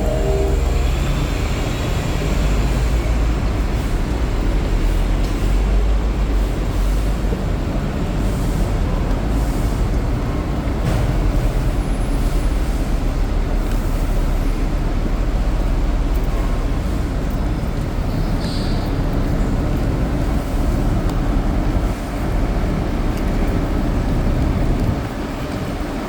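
Street traffic: a steady, loud low rumble of buses and other heavy vehicles running nearby.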